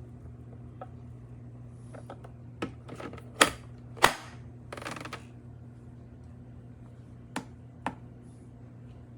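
Scattered sharp clicks and knocks of cups and utensils being handled while making tea, the loudest about four seconds in, followed by a brief hiss, over a steady low hum.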